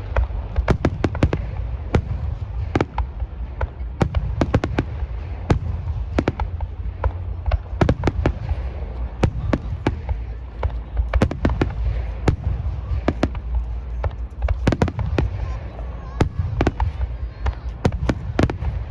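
Aerial fireworks display: many sharp bangs in quick, irregular succession over a continuous low rumble.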